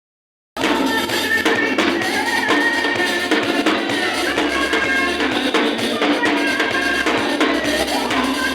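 Live band music at a sound check: a drum kit with bass drum and snare keeping a steady beat under keyboard, starting abruptly about half a second in.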